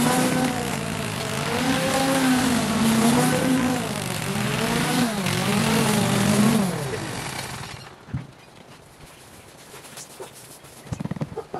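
Small engine running, its pitch repeatedly dipping and rising as the load changes, then dying away about seven seconds in. A few faint knocks follow.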